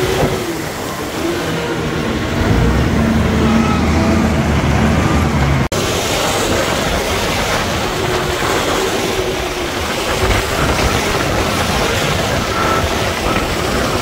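Diesel engine of heavy road-construction machinery running. About two seconds in, a deeper engine note comes in; it cuts off abruptly near the middle, and a steadier, noisier running sound follows.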